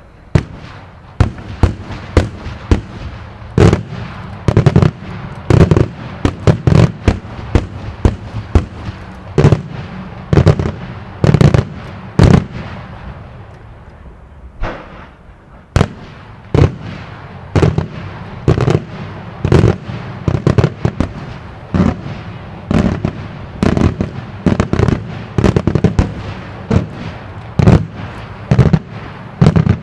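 Daytime fireworks display: aerial shells bursting in rapid succession, several sharp bangs a second, with a short lull about halfway through before the bangs resume.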